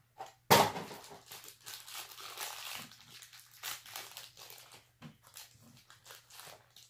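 A cardboard mystery-minis box is ripped open with one sharp, loud tear about half a second in. The black plastic bag inside then crinkles and rustles irregularly as it is handled.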